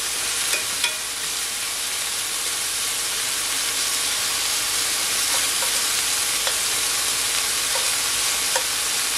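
Steak pieces searing in hot olive oil in a skillet: a steady sizzle, with a few light clicks scattered through it.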